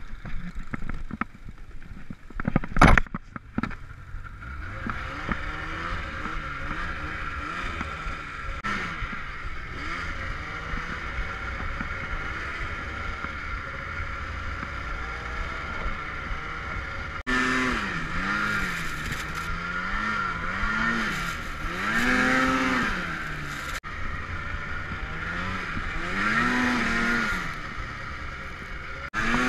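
Polaris snowmobile engine running while it is ridden, its pitch rising and falling again and again as the throttle is opened and eased off, with bigger, more frequent revs in the second half. A single sharp knock sounds about three seconds in, just before the engine is heard.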